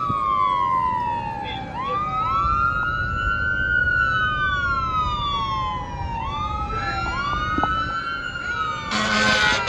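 Fire engine siren wailing, rising and falling in pitch over the rumble of the truck. A short air horn blast comes near the end.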